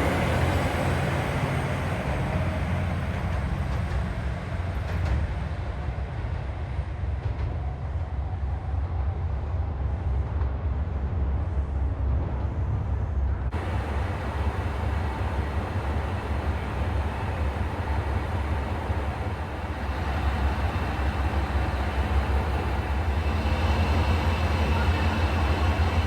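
Diesel railcar engine running with a steady low rumble.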